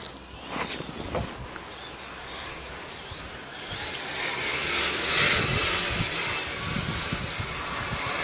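Radio-controlled snowcat running on two brushless electric motors, with a high whine and the clatter of its tracks. It gets louder about four seconds in.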